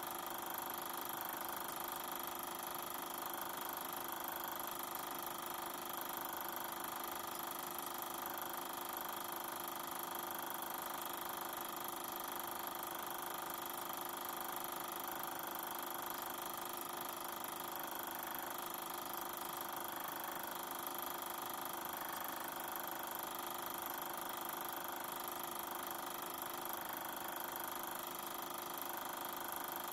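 Super 8 film projector running, its motor and film mechanism making a steady hum with no soundtrack playing.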